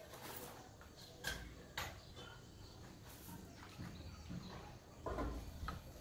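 Faint clicks and scuffs of a ceramic tile riser being handled and set against a granite stair tread: two sharp clicks a little over a second in, and a louder scuff about five seconds in.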